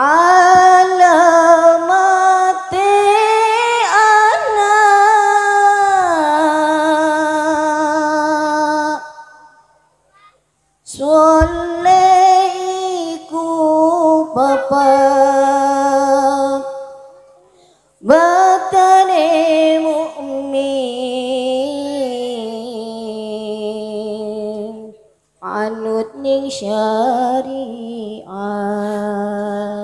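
A woman's solo voice singing an unaccompanied, ornamented Islamic devotional song (sholawat) through a microphone, in four long drawn-out phrases with short pauses for breath between them and no drums.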